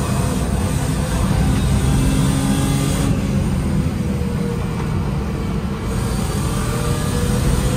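BMW E36's engine running hard at track speed, heard from inside the cabin along with tyre and wind noise. It eases off for a few seconds in the middle and builds again near the end.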